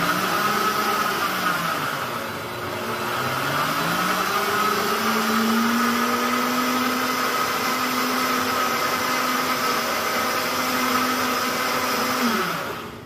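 Blender running, grinding peanuts with a little grapeseed oil into a peanut creamer. Its motor pitch sags about two seconds in, then climbs and holds steady. Near the end it is switched off and winds down.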